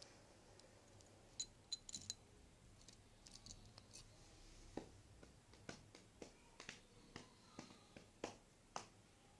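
Faint handling noise of small objects: a quick cluster of sharp little clicks about a second and a half in, then a dozen or so softer clicks and taps spread through the second half, against near silence.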